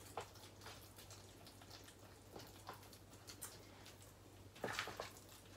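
Faint, irregular clicks and scrapes of a utensil against a plastic bowl as lumps in a cottage-cheese mixture are broken up, with a slightly louder cluster of taps near the end.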